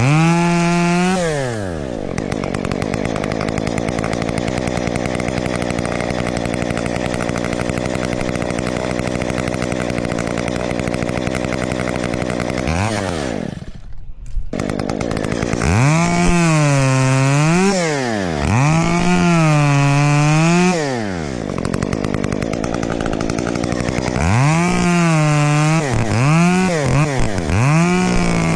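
Two-stroke chainsaw idling, then revved in repeated bursts: the engine pitch climbs sharply, holds, sags and drops back to idle, with a quick string of throttle blips near the end. The sound briefly drops away about halfway through.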